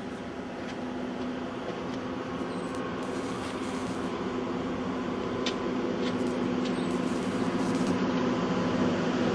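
A motor vehicle's engine humming steadily over a hiss, slowly growing louder.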